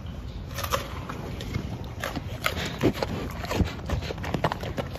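Polar bears biting and gnawing napa cabbage: a run of irregular crunches and cracks of the leaves, over a steady low hum.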